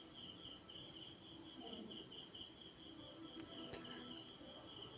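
Faint, steady chirping of a cricket: a high tone pulsing rapidly and evenly, about five pulses a second. There is one faint click a little past three seconds in.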